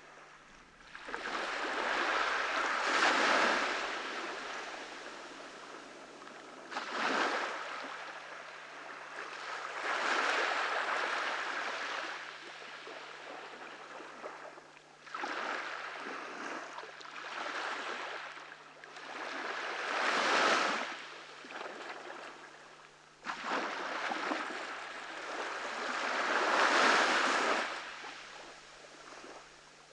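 Ocean waves breaking and washing up a beach, surging and fading every few seconds.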